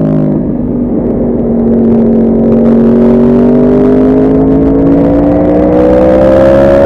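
Yamaha R1 motorcycle's inline-four engine under way, its pitch dipping briefly at the start and then climbing slowly and steadily as it pulls for several seconds.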